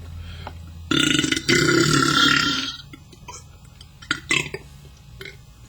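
A man's loud, deliberate belch lasting about two seconds, starting about a second in, with a brief break shortly after it begins.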